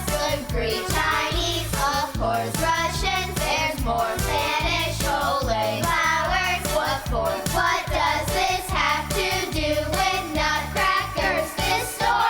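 Voices singing a Christmas song over an accompaniment with a steady beat.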